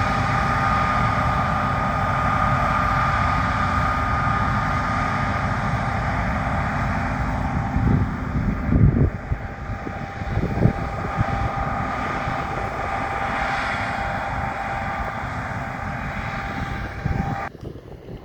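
John Deere combine harvester running at work: a steady low drone with a high mechanical whine over it. Wind buffets the microphone a few times in the middle, and the whine cuts off suddenly near the end.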